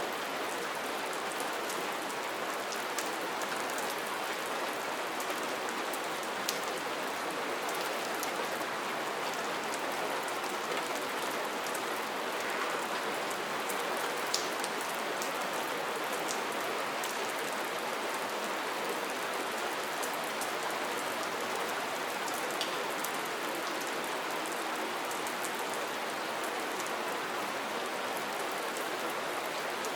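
Steady soft rain: an even hiss of rainfall, with now and then a single sharper drop tick standing out.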